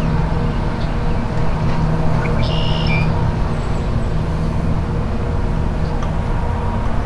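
Steady low machine hum from a running motor, unchanging throughout, with a short high chirp about two and a half seconds in.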